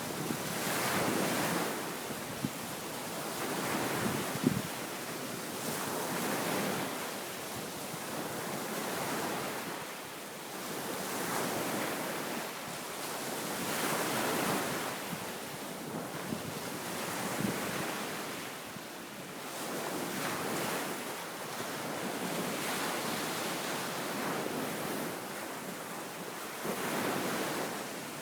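Wind-driven waves breaking and washing up a sandy beach, surging about every two to three seconds, with wind buffeting the microphone.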